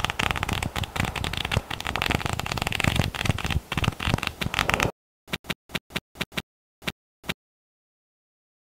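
Pages of a paper flipbook riffling under a thumb: a fast, dense rattle of page flicks for about five seconds, then about eight single flicks, the last a little past seven seconds in, after which it stops.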